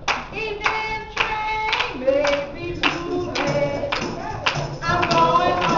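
Gospel singing with steady hand clapping on the beat, about two claps a second.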